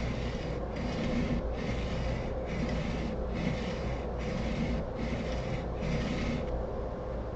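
A plane blade rubbed back and forth on a sharpening block in even, rhythmic strokes, a little over one a second, each a gritty scrape; about eight strokes, stopping about a second before the end. The strokes work the blade's bevel edge.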